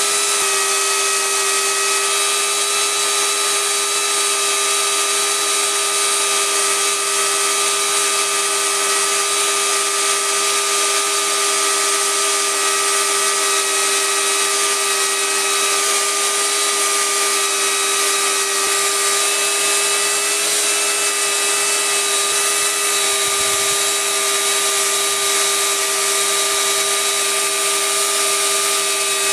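Electric chainsaw with an Oregon PowerSharp chain, mounted in an Alaskan chainsaw mill, running under load as it rip-cuts lengthwise along a log: a steady motor whine over the noise of the chain cutting the wood.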